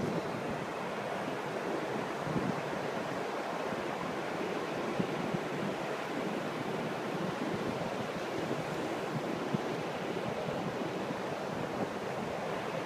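Surf washing on a sandy beach: a steady rush of sea water.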